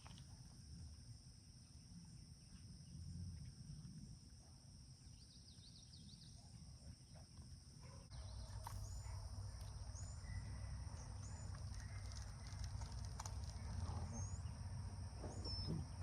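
Quiet outdoor ambience: a steady high insect drone with a low rumble that gets louder about halfway through, and a few faint short bird chirps in the second half.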